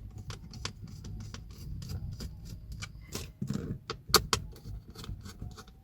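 Phillips screwdriver undoing screws in a car's plastic gear-lever console trim: irregular small clicks and knocks of the tool on the screws and plastic.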